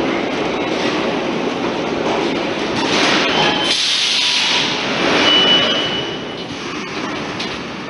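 Metro train pulling into the station and coming to a stop. The rumble of the cars fades, then a hiss of air comes about halfway through, followed by a brief thin high squeal.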